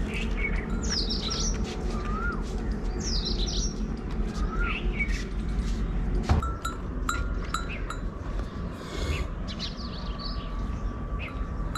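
Birds calling repeatedly in short falling chirps and brief up-and-down notes over a steady low rumble. A sharp knock comes about six seconds in, followed by a few short ringing clinks.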